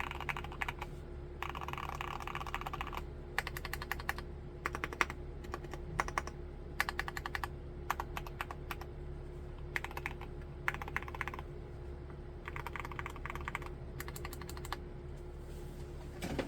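Typing on an MMstudio Class80 R2 mechanical keyboard fitted with Cherry MX2A Black linear switches. The keystrokes come in quick bursts of about one to two seconds with short pauses between them, over a faint steady hum.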